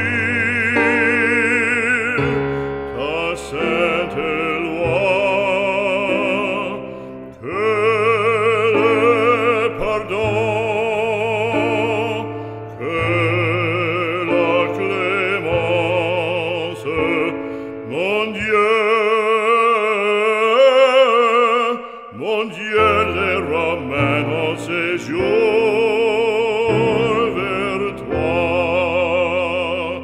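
Background music: a classical, operatic voice singing long notes with wide vibrato over a sustained instrumental accompaniment.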